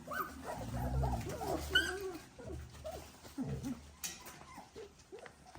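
Three-week-old Dalmatian puppies making soft, short whimpers, squeaks and grunts.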